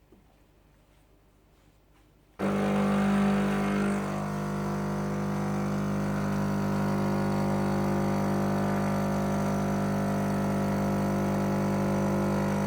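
Philips LatteGo 3200 automatic coffee machine's pump switching on suddenly after a couple of seconds of near silence, then humming steadily while it dispenses a drink.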